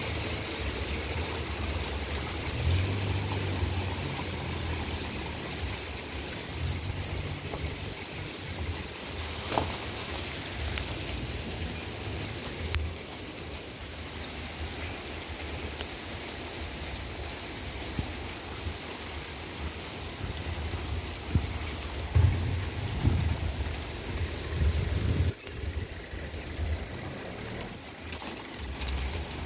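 Hail mixed with rain falling steadily on grass, paving and parked cars, with a few sharper knocks near the end.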